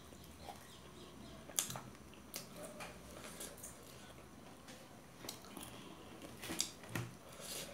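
Close, quiet chewing of crisp fried momos, with a few short clicks of forks against steel plates scattered through.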